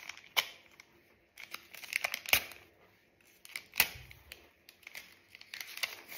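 A collectible-card pack being torn open by hand: crinkling and tearing of the wrapper in separate bursts, the sharpest about two seconds in and again near four seconds.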